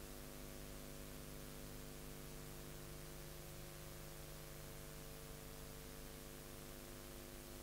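Steady hiss with a low electrical hum made of several constant tones, and no programme sound: the bare noise of a blank stretch of recording.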